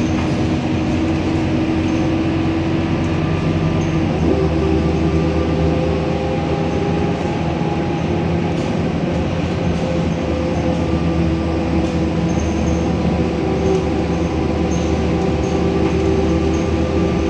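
Scania K230UB bus under way, heard from inside the cabin: its 9.3-litre five-cylinder diesel running steadily along with road and driveline noise and a few light interior rattles. About four seconds in, the engine note changes.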